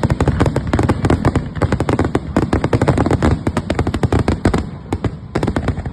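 Fireworks going off in a rapid, dense string of bangs, many a second, over a continuous low rumble.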